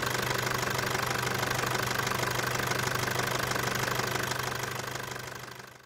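Toyota Hilux 2.5-litre 2KD-FTV four-cylinder intercooled turbo diesel idling steadily at an even, unchanging pitch, fading out near the end.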